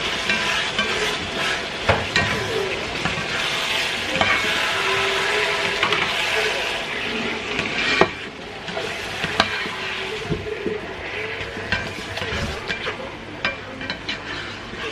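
Blended peppers sizzling as they fry in a nonstick frying pan, stirred with a plastic slotted spatula that scrapes and knocks against the pan now and then, one knock louder than the rest about eight seconds in.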